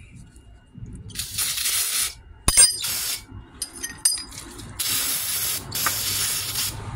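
Aerosol can of brake parts cleaner spraying onto a small metal bracket in four short hisses, with a sharp click about two and a half seconds in.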